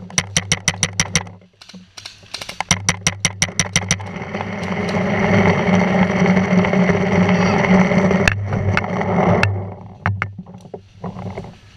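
Paintball marker firing rapid strings of shots, about eight a second, in two bursts in the first four seconds, with a few scattered shots near the end. Between them a loud, steady rushing noise lasts about five seconds.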